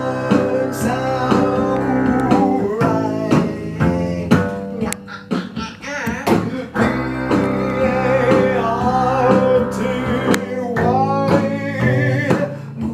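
Upright double bass bowed on low, held notes while a man sings over it.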